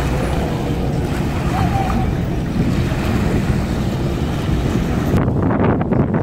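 Wind blowing on the microphone over the wash of small waves, with faint voices in the background. About five seconds in the sound cuts to a duller background of voices and wind.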